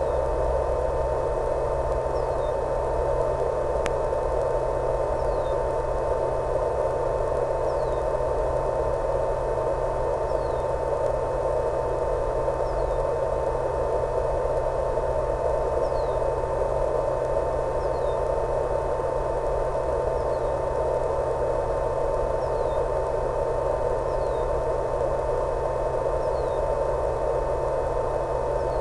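Steady static hiss with a constant hum and tone from the audio channel of an analog FPV video downlink, with faint short falling chirps about every second and a half.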